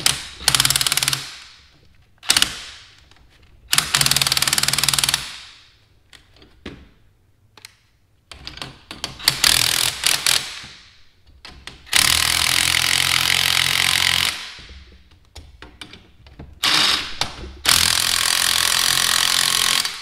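Impact wrench hammering in about seven bursts, each lasting from under a second to about two and a half seconds, the longest near the middle and the end. It is running down the 19 mm nuts on a coil-spring compressor's threaded rods, compressing a coil spring off a Bilstein 5100 shock.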